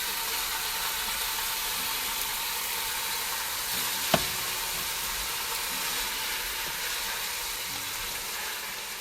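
Food frying in a hot pan, a steady sizzling hiss, with a single sharp click about four seconds in.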